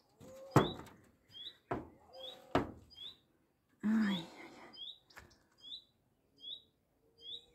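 A small bird repeating a short, high, rising chirp about once every second. Two sharp knocks come in the first three seconds.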